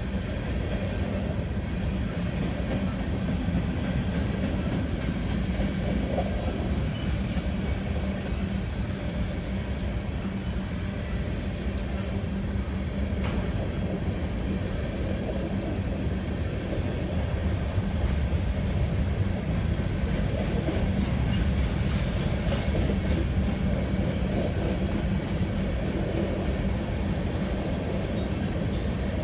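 Covered hopper cars of a Union Pacific freight train rolling steadily past, their steel wheels running on the rails in an even, unbroken noise.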